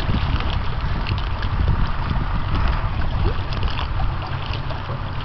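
Wind buffeting the microphone as a steady low rumble, over the wash of choppy waves on open water.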